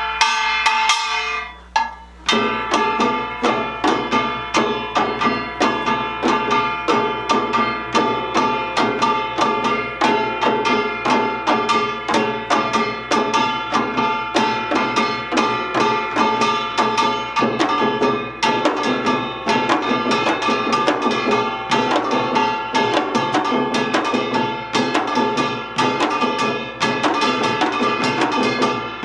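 Samul nori ensemble playing Utdari rhythms: kkwaenggwari small gong and jing ringing over janggu hourglass drums and buk barrel drums. A brief break about two seconds in, then fast, dense drumming and gong strokes.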